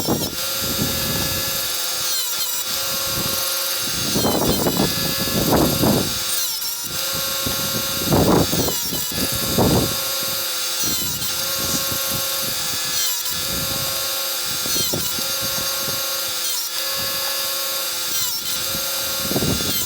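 Chicago Electric electric chainsaw-chain sharpener running with a steady motor whine, its grinding wheel brought down onto the chain's cutting teeth in short grinding passes, about eight of them, one tooth after another.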